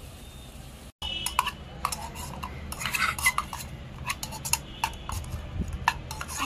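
A small metal slotted spoon stirring sliced onions in a small stainless-steel pot, scraping and clinking against the steel in quick, irregular strokes that start about a second in.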